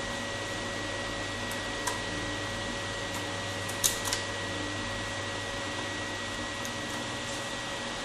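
Steady background hum and hiss with a thin steady whine, broken by a few faint small clicks about two and about four seconds in as flat ribbon-cable strips are worked free of their connectors on a laptop's palm-rest plate.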